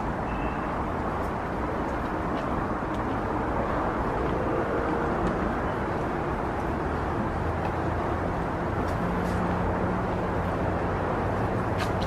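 Steady rumble of distant city traffic, with a low engine drone coming in about nine seconds in and a few faint ticks.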